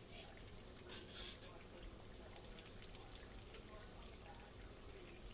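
Cherry fried pies frying in hot grease: a steady sizzle with scattered crackles, and louder flurries of spattering just after the start and again about a second in.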